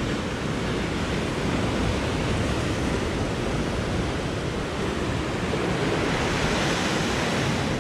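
Ocean surf washing over and breaking against shoreline rocks: a steady, unbroken rush of water.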